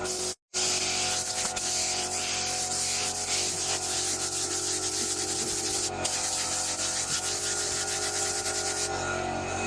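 Sanding on a car's body panel during a paint repair, a steady rasping hiss with a brief break about half a second in.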